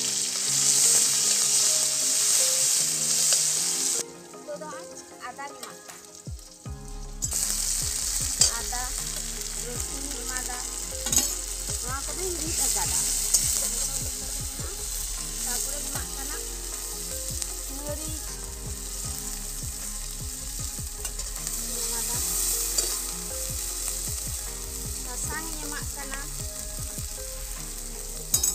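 Food frying and sizzling in hot oil in an aluminium wok, with a metal spatula stirring and scraping against the pan in sharp clicks. The sizzle drops away about four seconds in and comes back a few seconds later.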